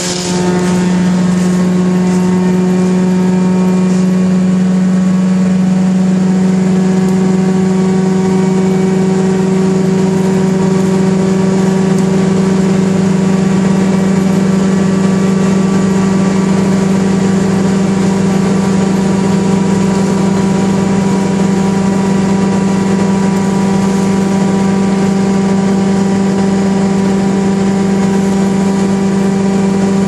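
A 1974 Wayne wood chipper running steadily at constant speed with nothing being fed in, a loud, even engine hum with no load changes.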